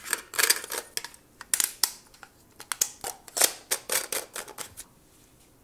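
Plastic handling noise: a quick run of crinkles, rustles and clicks that stops about five seconds in.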